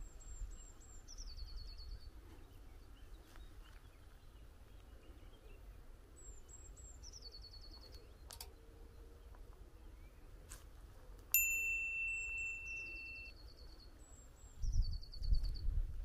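A small songbird repeats a short song four times: a few thin, high notes followed by a quick, lower trill. About two-thirds of the way through, a clear, steady tone starts suddenly and holds for about two seconds; it is the loudest sound here. A low rumble comes in near the end.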